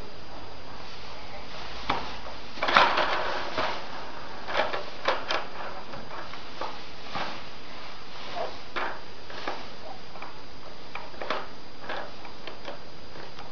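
Irregular plastic clicks and knocks from a baby walker as a baby handles its toy bar of plastic letter blocks and tray, with the loudest clatter about three seconds in.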